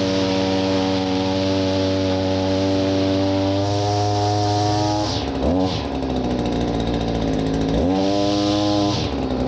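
Gas string trimmer engine running at high speed as a test after its trimmer head was reassembled with new string; the throttle is eased off and opened again about five seconds in and once more near the end.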